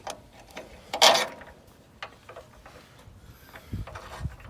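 Metal clicks and clanks of hand tools on the leaf-spring shackle bolts of a pickup being fitted with lowering shackles, with one louder clank about a second in and two low thumps near the end.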